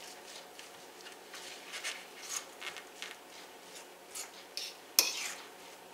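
Fork stirring and mashing a moist mix of canned salmon, egg, onion and breadcrumbs in a plate: soft, uneven scraping strokes, with one sharp clink of the fork against the plate about five seconds in.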